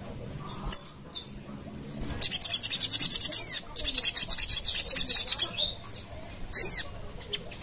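Sogon (a sunbird) singing: a few short high chirps, then a long, rapid, high-pitched trill in two runs of about a second and a half each, and a sharp, loud call near the end.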